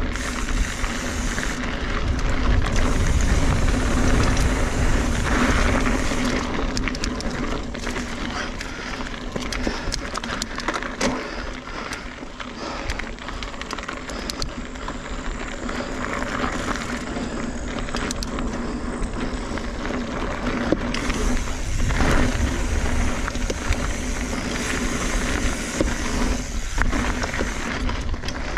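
2017 Kona Honzo hardtail mountain bike ridden along a dirt singletrack: tyres rolling on dirt and loose stones with the bike rattling over bumps, under a steady low rumble of wind on the microphone.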